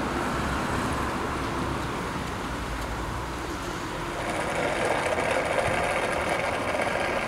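BMW E46 M3 CS's straight-six engine idling steadily through an Eisenmann exhaust, growing a little louder and brighter about four seconds in.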